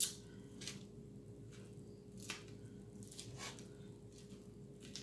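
Mukbang eating sounds: a salad being chewed close to the microphone and a fork picking through it in a paper-lined basket. The wet crunches and clicks come irregularly, about one every half second to second, over a faint steady hum.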